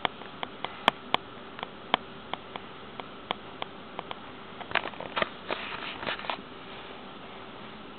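Pet rabbits' claws tapping on a hard kitchen floor: a string of sharp irregular clicks, then a quick flurry of scrabbling clicks about five seconds in.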